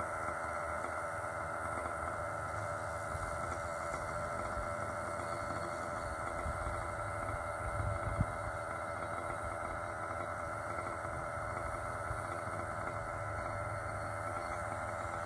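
The OS 55HZR nitro engine of an RC helicopter idling steadily on the ground, with one short knock about eight seconds in.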